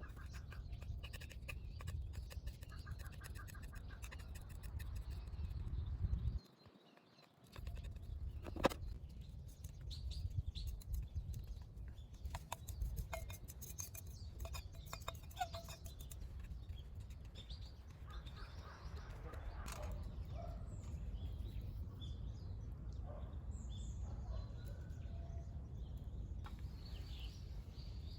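Outdoor birdsong with crows cawing, over a steady low rumble. The sound drops out for about a second around a quarter of the way through.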